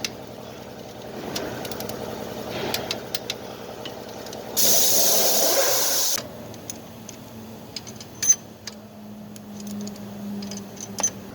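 A loud, even hiss lasting about a second and a half near the middle, from a pressurised jet such as spray or air, amid scattered light clicks and taps of tool work on the engine. A faint steady hum sounds in the second half.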